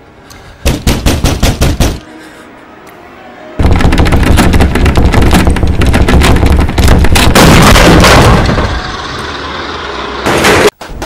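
Rapid, loud banging on a metal toilet stall door. A quick burst of about eight blows is followed, after a short pause, by a longer, denser pounding that eases off and stops abruptly near the end.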